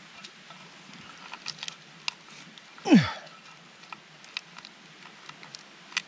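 Small crackles and rustles of papery garlic skins being peeled off by hand over a steel pan. About three seconds in there is one short, loud, voice-like cry that drops steeply in pitch.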